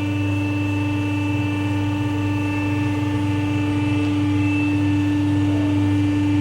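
Factory machinery running with a steady, loud hum made of several fixed tones that hold unchanged throughout.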